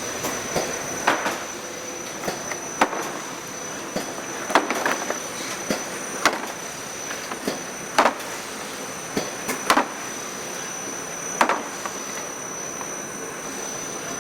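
Pizza cartoning machine running through its cycle: a loud clack about every second and three-quarters, with lighter clicks between, over a steady mechanical hiss and a thin high whine.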